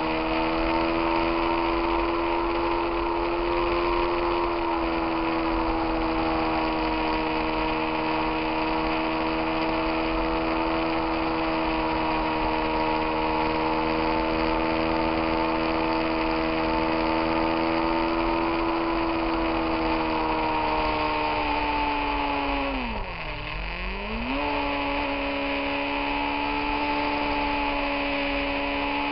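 Motorcycle engine running at a steady cruising pitch, heard from the rider's own bike over a steady rush of wind and road noise. About 23 seconds in, the revs drop sharply and climb back up within about a second and a half.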